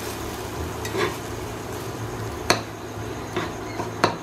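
Slotted metal spatula stirring and scraping a mashed eggplant mixture in a nonstick frying pan over a steady sizzle of frying, with four sharp clacks of the spatula against the pan.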